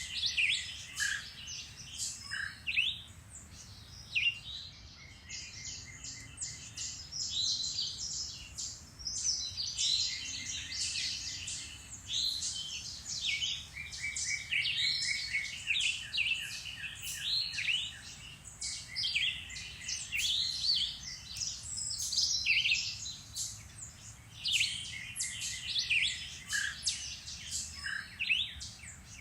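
Several woodland songbirds singing and chirping at once, a dense, overlapping chorus of short high calls and trills without a break.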